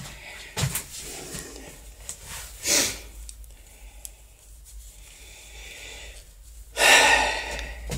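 A few short, breathy bursts of noise from a person breathing close to the microphone, the loudest and longest near the end, over a low steady hum.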